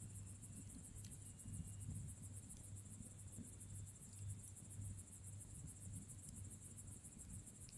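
Bonfire burning: a low, steady rumble of flames with a few sharp crackles and pops. Over it runs a steady, fast-pulsing high chirring of crickets.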